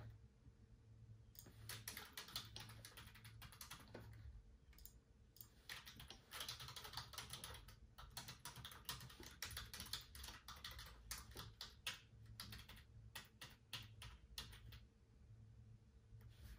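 Typing on a computer keyboard: quick runs of soft key clicks with short pauses between them, stopping shortly before the end.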